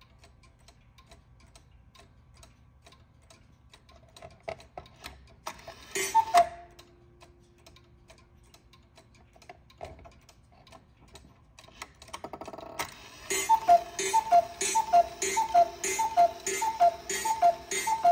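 E. Schmeckenbecher Black Forest cuckoo clock ticking, with a single two-note cuckoo call about six seconds in. From about thirteen seconds the cuckoo calls over and over, about ten two-note calls in quick succession, each with a clatter from the mechanism.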